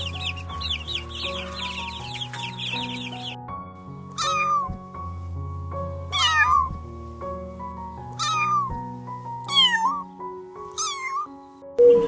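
A cat meowing five times, each a short falling call, about every one to two seconds, over background music. Before the meows, for about the first three seconds, there is rapid high chirping.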